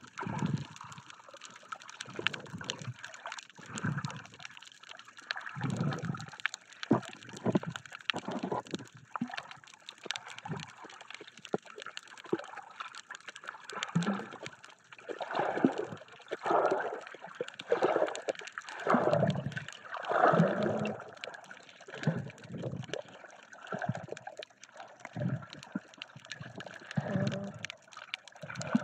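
Muffled water sloshing and gurgling against an underwater camera while snorkelling, in irregular surges about every second.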